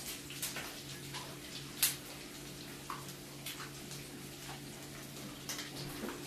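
Buffalo fish frying in hot grease on the stove: a steady sizzle with scattered sharp pops and crackles, one louder pop about two seconds in, over a steady low hum.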